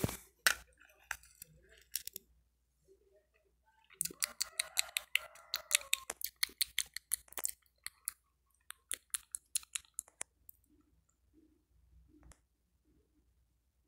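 A quick run of light clicks and taps, several a second, from small hard objects being handled. It starts about four seconds in, stops about six seconds later, and then only a few soft ticks follow.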